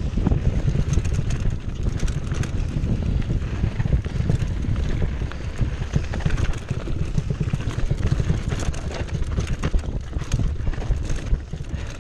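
2015 Cannondale Jekyll 4 mountain bike riding over dirt and rocky singletrack: tyres crunching on gravel and stones, with the chain and frame clattering and rattling in many sharp clicks over a steady low rumble.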